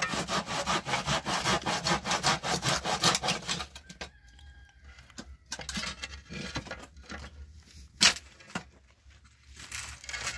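Hand saw cutting through a wooden pole in quick, even back-and-forth strokes, about five a second, stopping about three and a half seconds in. After that, scattered faint knocks and one sharp knock about eight seconds in.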